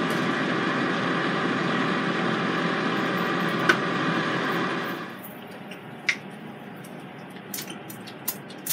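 Power XL air fryer's fan running with a steady hum that stops about five seconds in as the basket is pulled out. Near the end come a few short spritzes from a hand-pumped oil sprayer.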